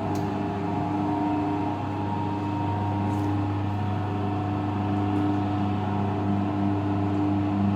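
Pistachio salting machine running with a steady electric hum and a few steady tones, with faint ticks now and then.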